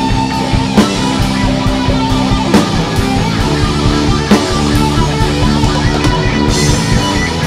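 Instrumental rock music: electric guitar playing held notes over a drum kit keeping a steady beat.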